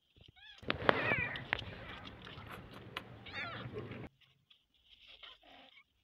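Small kittens mewing in short high-pitched calls, about a second in and again a little past the middle, over a rustling noise that cuts off suddenly near the two-thirds mark.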